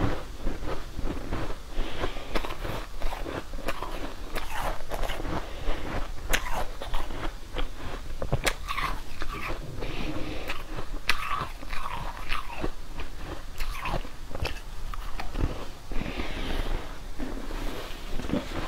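Close-miked biting and crunchy chewing of a frozen pink morsel coated in green powder: a continuous, irregular run of crisp crunches and clicks.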